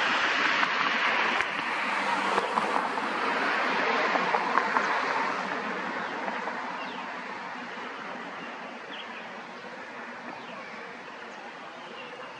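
A steady rushing noise that fades gradually, with a few short bird chirps near the end.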